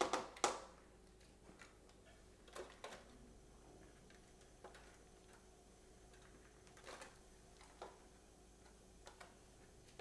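Broccoli florets dropping from a bowl into disposable aluminium foil pans: a few sharp taps and crinkles of the foil at the start, then scattered soft taps.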